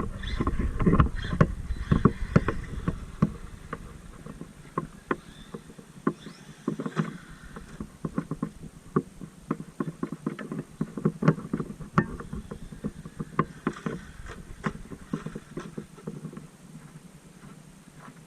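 Traxxas MAXX RC monster truck driving over rough ground, its tyres and chassis making irregular clattering knocks and crunches, with a heavier rumble in the first few seconds.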